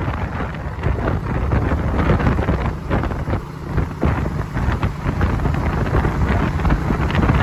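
Wind buffeting the microphone in uneven gusts over a low, steady rumble of road and traffic noise from a moving vehicle.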